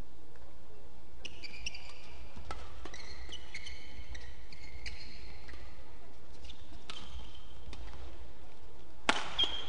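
Athletic shoes squeaking on an indoor badminton court, in short high squeals, with scattered sharp taps among them. The squeaking comes in two spells, the first from about a second in and the second near the end.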